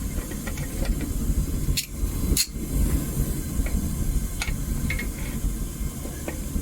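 Home-made propane burner firing a metal-melting furnace: a steady low rushing roar of the flame. Two sharp knocks about two seconds in.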